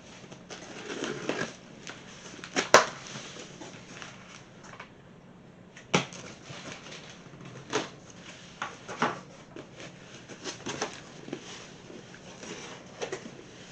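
Cardboard mystery box being opened and its contents handled: scattered rustles, scrapes and short knocks of cardboard, the sharpest knock about three seconds in.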